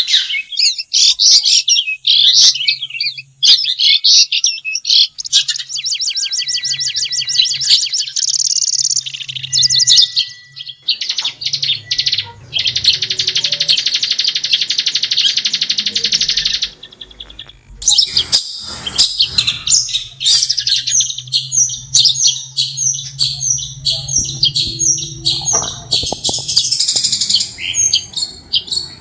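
Long-tailed shrike singing a varied, chattering song of quick notes and fast trills, with one harsh buzzy note held about four seconds midway, then a brief pause and a run of rapid repeated notes.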